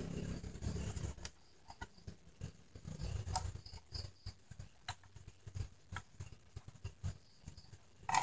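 Plastic casing of a Sony portable radio being handled and turned over: a low rubbing rumble for about the first second, then scattered light clicks and taps.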